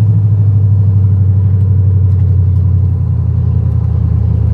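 Brand-new LS V8 in a 1988 Ford Bronco running at a steady, gentle cruise while it is being broken in, with a low, even exhaust drone heard from inside the cab.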